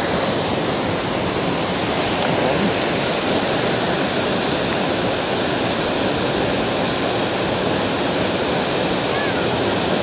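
Waterfall pouring down close by: a loud, steady rush of falling water.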